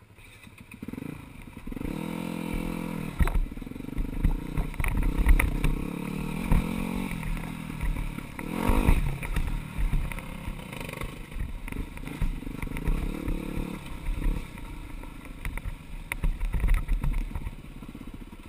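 Four-stroke dirt bike engine running close to the microphone, revving up and easing off several times as the bike rides a rocky trail. Clattering knocks from the bike going over rocks come through, the loudest about halfway through.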